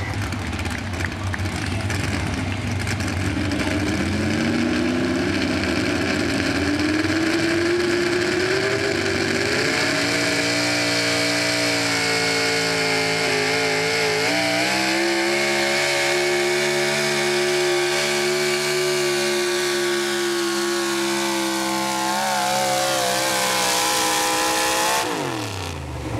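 A 4wd pickup's pulling engine at full throttle dragging a weighted sled, its pitch climbing steadily through the first ten seconds. The pitch steps up again about fourteen seconds in and holds high, then falls off sharply near the end as the pull ends.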